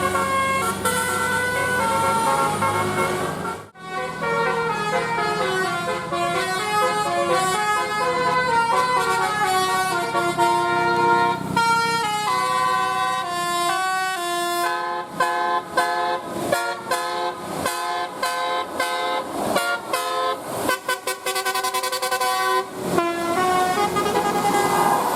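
Indonesian bus 'telolet' multi-tone horns playing fast tunes of stepped notes, broken by a sudden cut about four seconds in. In the second half the notes turn to quick short staccato toots. A low engine hum lies under the first few seconds.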